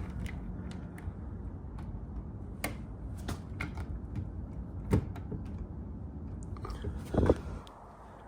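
Scattered light clicks and knocks of door-lock hardware being handled and fitted at the door, with a sharper knock about five seconds in and a louder clunk just after seven seconds.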